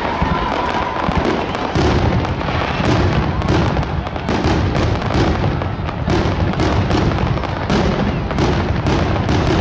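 Fireworks finale barrage: aerial shells bursting in rapid succession, several bangs a second, with continuous crackling between them.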